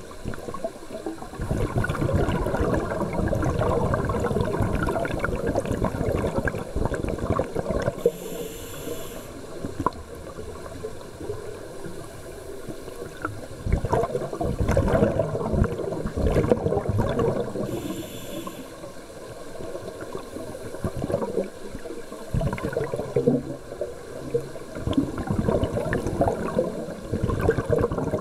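Scuba divers breathing underwater through demand regulators: the bubbling rush of exhaled air from the regulator exhausts, coming in long bursts of several seconds that swell and fade.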